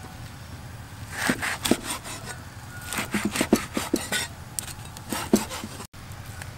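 A cleaver chopping crisp fried rolls on a wooden chopping block: crunchy cracks and knocks in three short bursts.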